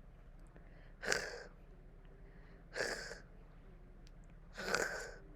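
A woman pronouncing a breathy, hissing consonant of the Squamish alphabet on its own, three times, about two seconds apart.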